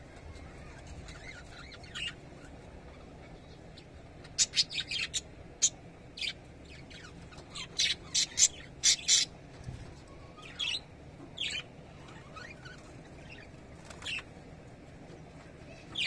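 Budgerigars chirping: short, sharp high calls scattered throughout, with two quick runs of rapid chirps about four and eight seconds in.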